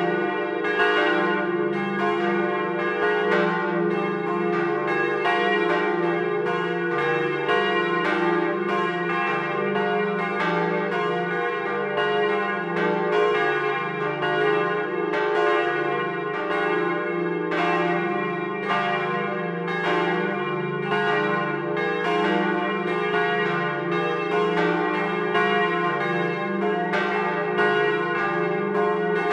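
Swinging church bells ringing together, recorded close up inside the bell tower. Their strokes fall in an uneven, overlapping pattern over a steady, ringing hum.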